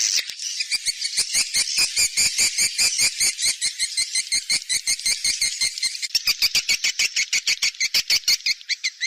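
Swiftlet lure call: a dense twittering of high swiftlet chirps over a fast, even ticking at about seven clicks a second, which turns sharper about six seconds in. This is a recorded call played to draw swiftlets into a nesting house.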